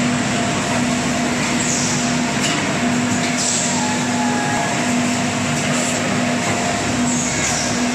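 Automatic putty powder bag-packing machines and their belt conveyor running: a loud, continuous mechanical noise with a steady hum that drops out and comes back, and a few short hisses.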